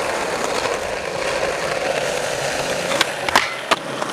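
Skateboard wheels rolling over rough asphalt, a steady gritty rumble, with a few sharp wooden clacks from the board about three seconds in.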